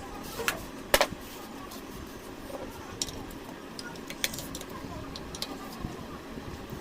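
Metal tools and pump parts clinking and knocking as the water pump housing is being fitted and its nuts put on, with scattered sharp clicks; the loudest knock comes about a second in.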